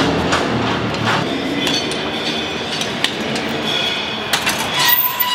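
Metal tools clinking and knocking as a dirt-bike tyre is worked on its rim on a tyre-changing stand, with a few sharp clinks, the most near the end, over a steady background din.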